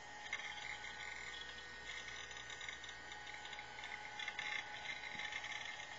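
Quantum ProDrive hard drive in a Macintosh LC II seeking busily as it reads the system and extensions at startup: a rapid, irregular chatter of the head actuator that starts about a third of a second in, over a steady thin whine.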